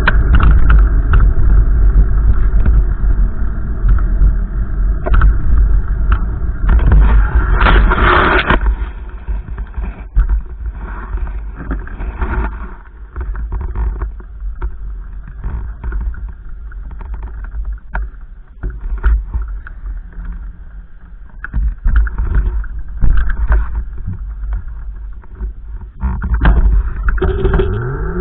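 Wind buffeting the microphone in gusts: a deep, rumbling roar that is strongest in the first third, then drops to weaker, patchier gusts before picking up again near the end.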